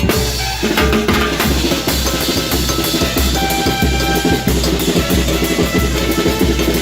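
Timbales and drums of a small Ecuadorian town band (banda de pueblo) playing a quick rhythm, with a steady bass-drum beat. The band's held notes sound over the drums.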